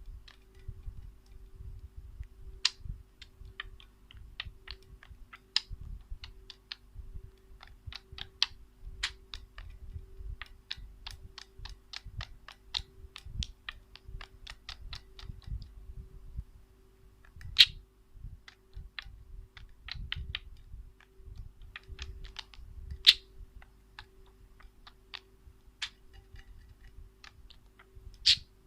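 Small pet bird pecking and tapping at a mirror: irregular quick sharp clicks, several a second, with a few louder knocks, over a faint steady hum.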